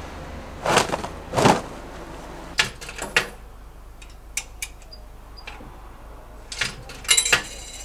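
Wet laundry being loaded into a self-service laundromat tumble dryer and its metal door shut: a series of separate knocks and clicks, the loudest two in the first couple of seconds. Two faint short high beeps come about halfway through.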